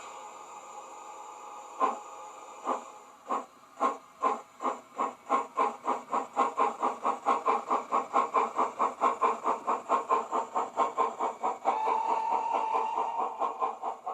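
Digitrains two-cylinder Southern steam locomotive sound played by a Zimo MX644 DCC sound decoder through a small speaker in a model locomotive. Exhaust chuffs start slow and far apart and quicken to about four a second as the locomotive pulls away, over a steady hiss. A brief steady tone sounds near the end.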